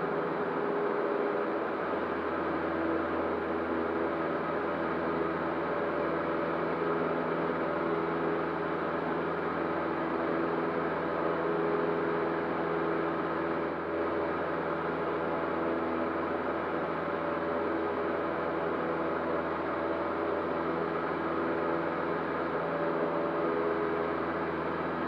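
Cessna 152's four-cylinder Lycoming engine and propeller droning steadily, heard inside the cabin, with no change in pitch or level.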